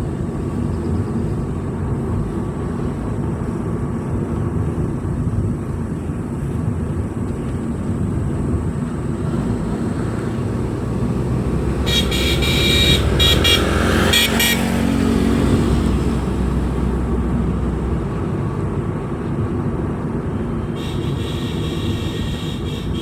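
A vehicle driving along a road, its engine and tyres giving a steady low rumble. About twelve seconds in, a horn honks in quick pulses for two or three seconds while another vehicle's sound sweeps past, and a fainter horn-like tone comes in near the end.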